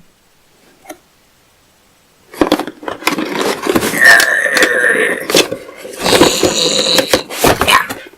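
A cardboard box and its packaging being opened by hand: after about two seconds of quiet, loud rustling, scraping and clicking, with a squeak lasting about a second around the middle.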